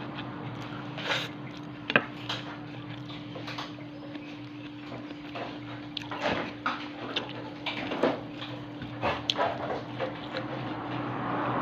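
Close-miked eating: irregular wet smacks and clicks of chewing food, over a steady low hum.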